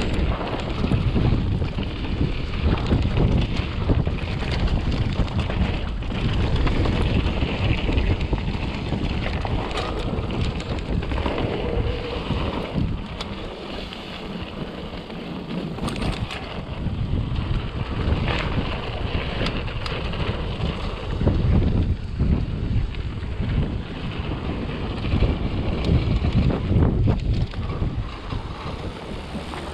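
Mountain bike rolling fast down a dirt downhill trail: tyre noise with constant knocks and rattles from the bike over rough ground, and wind on the microphone.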